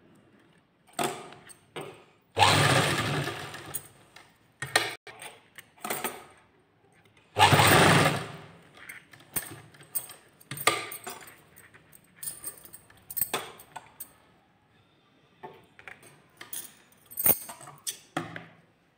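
Sewing machine stitching in two short runs of about a second and a half each, with scattered clicks and knocks from handling the machine and fabric between them.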